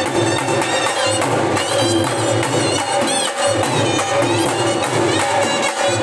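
Live Indian folk music: dhol barrel drums beating a steady, fast rhythm, with a wind instrument playing a melody over it.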